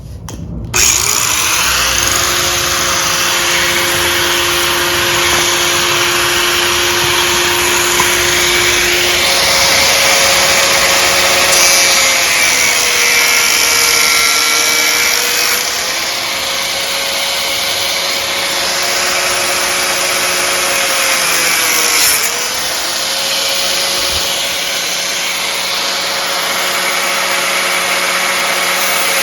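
Electric power cutting tool switched on about a second in and running at high speed with a steady whine, its pitch sagging briefly twice as it is loaded in the cut.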